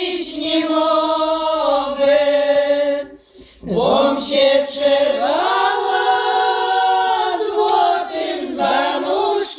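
A group of women singing a Polish folk song together without accompaniment, in long drawn-out notes. There is a short pause for breath about three seconds in before the next line.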